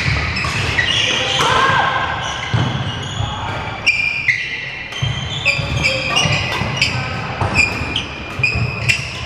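Badminton rally: rackets striking the shuttlecock in a quick run of sharp hits, with shoes squeaking briefly on the wooden court floor, ringing in a large hall.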